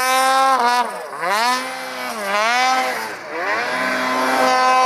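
Snowmobile engine revving hard, its pitch dropping and climbing back about three times as the throttle is worked, then holding at high revs near the end.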